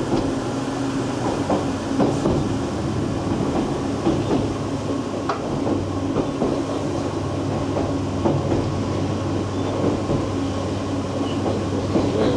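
Interior running noise of a Vivarail Class 230 diesel-electric train on the move: a steady hum from its underfloor diesel engine-generator sets over the rumble of wheels on rail, with scattered clicks and knocks. The hum shifts in pitch about halfway through.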